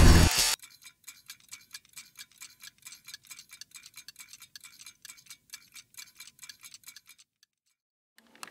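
A loud closing hit, then rapid, even mechanical ticking like a clockwork mechanism, which cuts off suddenly near the end, leaving a moment of silence.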